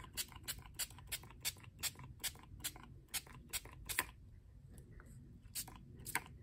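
Lindy's Stamp Gang ink spray bottle pumped in quick short spritzes, about two or three a second, then a pause of about a second and a half and three more spritzes near the end. The nozzle is one she thinks is a little clogged.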